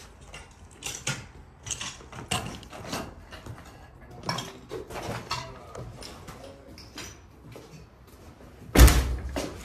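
Footsteps crunching over fallen plaster and debris on a wooden floor, irregular crackling steps. Near the end, a loud thud as a wooden panel door is shoved open.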